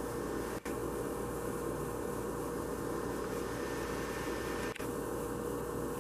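Steady hiss with a constant hum, broken by two very brief dropouts, about half a second in and near the end; no bird calls.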